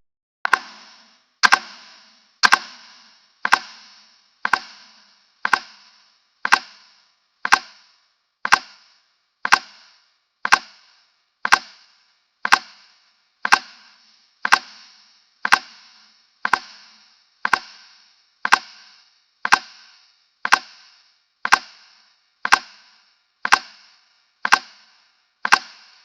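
A timer's tick sound effect: one sharp, woody tick every second, keeping an even beat. It starts about half a second in.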